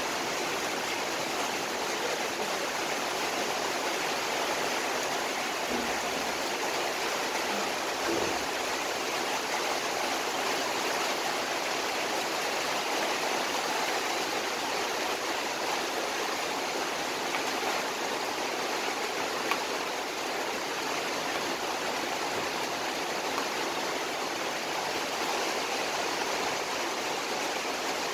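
Steady rushing hiss from a gas stove burner heating a wide pan.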